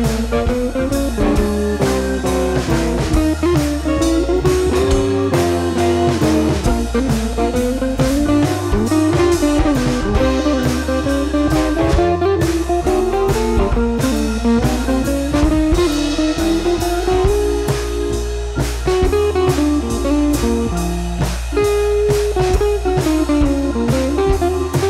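Background music: a bluesy guitar tune with a drum kit and bass, playing steadily.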